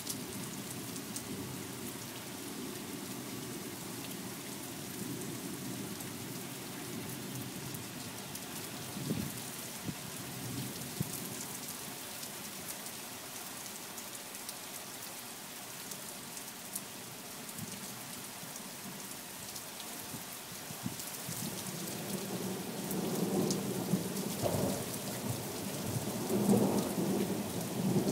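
Steady rain hissing and pattering with thunder rumbling low; a louder, longer roll of thunder swells in the last quarter.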